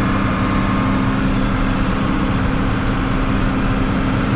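John Deere tractor engine running steadily at working speed, heard inside the cab. The PTO is driving a flail stubble beater: a steady, even drone.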